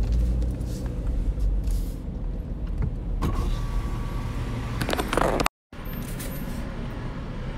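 Car interior as the car creeps forward, with a low engine and road rumble. About three seconds in, an electric power window motor whines for about two seconds as the driver's window goes down, ending in a short burst of noise.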